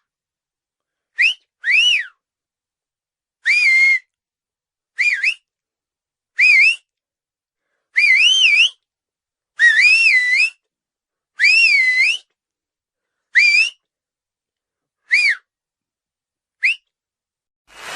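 Whistling: eleven short separate whistles, each swooping up and down in pitch, some ending on a rising slide, with dead silence between them.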